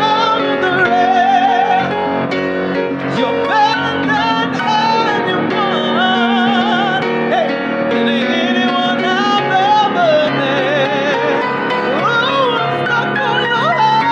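A man singing live in a high belt with vocal runs and wide vibrato, over piano accompaniment.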